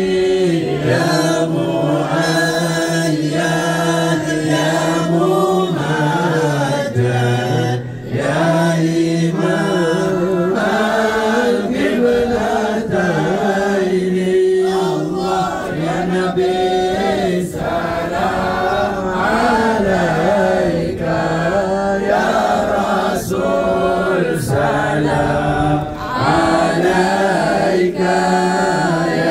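A congregation chanting Arabic devotional praise of the Prophet (salawat) together in unison, a Maulid recitation. The singing is continuous, its melody moving over a steady low note, with short breaks between phrases about eight seconds in and again near the end.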